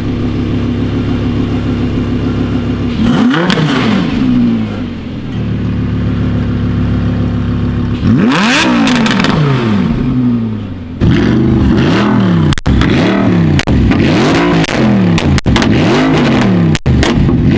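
Second-generation Audi R8's V10 idling and blipped twice, each rev rising and falling back to idle. Then a first-generation Audi R8 is revved in quick repeated blips, about one a second.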